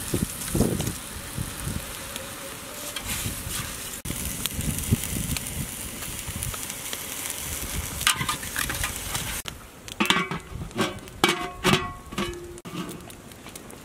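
Seasoning and salt are sprinkled and sauce is poured onto raw pork pieces in a large aluminium pot, a steady hiss with soft thuds. About ten seconds in come several sharp metallic clanks with a brief ringing tone as the aluminium lid is handled and set on the pot.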